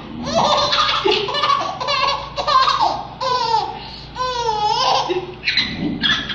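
Baby laughing hard in repeated bursts, with a longer, high wavering laugh about four seconds in.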